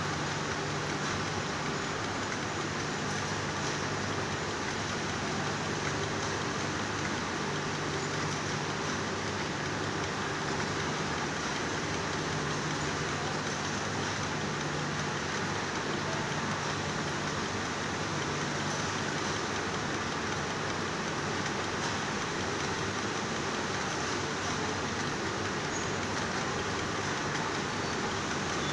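Yarn rewinding machine running steadily, its electric motor turning the drums that wind up yarn unravelled from defective knitted sweater fabric; a steady low hum over an even hiss.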